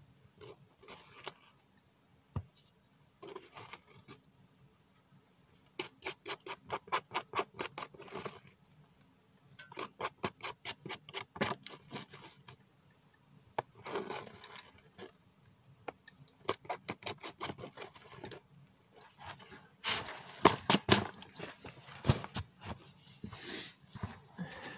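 Camping gear handled at a canvas pouch, with steel mugs taken out: rustling and bursts of rapid clicking, with a few sharp knocks near the end as the mugs are set down on the stove top.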